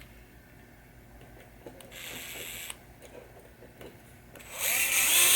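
Power driver running in two short bursts, a quieter one about two seconds in and a longer, louder one near the end with a wavering motor pitch, driving screws in to reassemble a pinball saucer kicker assembly.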